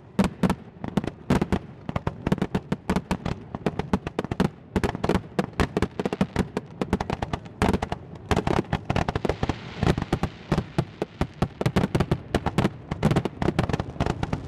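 Fireworks finale: aerial shells launched and bursting in rapid succession, several bangs a second with no gaps. A steady hiss joins the bangs about nine seconds in.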